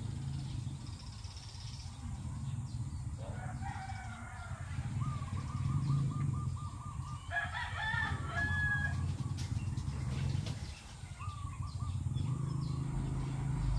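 Rooster crowing twice, about three seconds in and again past the middle, with a smaller bird calling in a wavering line between, over a steady low hum.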